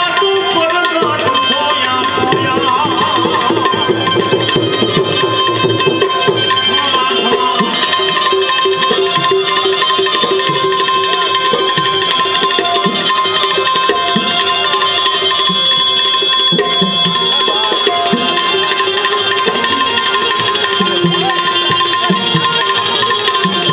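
Instrumental interlude of a Gujarati devotional bhajan: tabla playing a steady rhythm under a sustained melody instrument.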